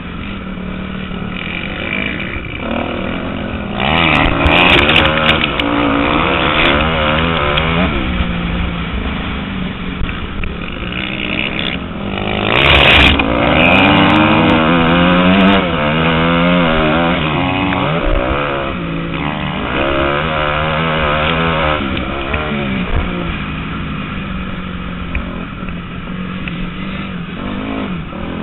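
Motocross bike engine revving up and down as the rider accelerates, shifts and backs off around the dirt track, heard close from the rider's own bike. The pitch rises and falls throughout, with two louder full-throttle pulls about four and thirteen seconds in.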